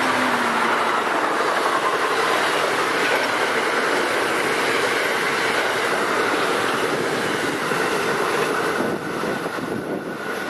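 Amtrak passenger train's cars rushing past at speed on electrified track, wheels running on the rails. A faint steady high tone joins later, and the sound drops off about nine seconds in as the train pulls away.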